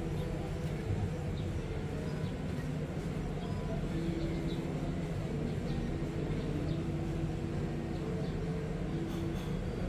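Steady indoor café ambience: a low rumble and hum with a few faint clinks.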